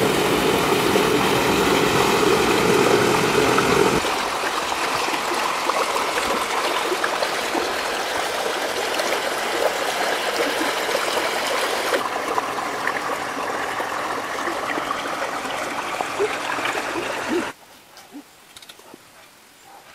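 Rocky stream rushing and splashing over stones, a loud steady watery noise. It shifts in level and tone twice, then drops away abruptly near the end, leaving only faint scattered sounds.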